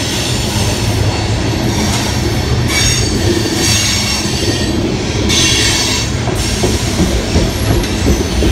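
Freight train cars rolling past close by: a steady rumble of wheels on rail, with a high wheel squeal coming and going three or four times.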